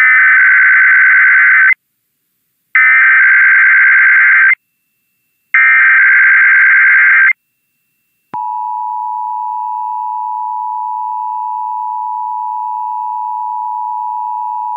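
Emergency Alert System test tones: the SAME header's three data bursts, each just under two seconds long and about a second apart, then, about eight seconds in, the steady two-tone attention signal (853 and 960 Hz) starts and holds.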